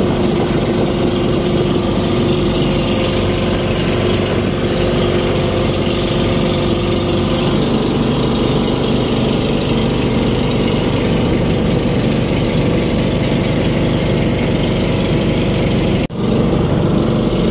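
Outrigger boat's engine running steadily while under way, its pitch shifting slightly about halfway through, with a momentary break near the end.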